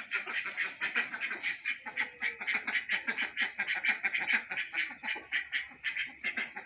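Domestic ducks quacking in quick, repeated short calls as a mixed flock of ducks and chickens is fed grain.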